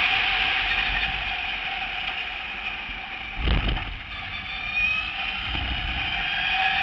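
Onboard sound of an electric race car at speed: the AC Propulsion electric motor's high whine over wind and road noise, easing off about halfway through and rising in pitch again near the end. Two low thumps, the first about three and a half seconds in, the second two seconds later.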